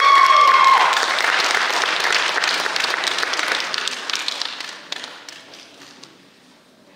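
Audience applauding, with one voice holding a long cheer over the first second; the clapping dies away after about five seconds.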